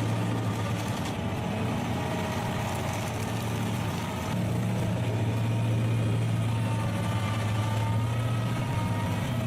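Engine of a JCB skid steer carrying a stump grinder attachment, running steadily with a low hum; it gets a little louder about four seconds in.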